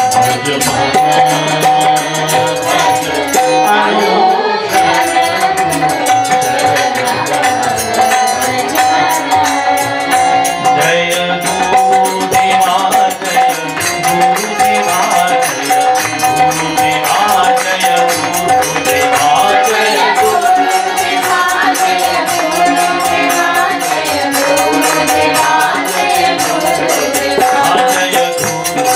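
Devotional bhajan: a man singing over a harmonium's sustained reeds, with jingling hand percussion keeping a steady beat.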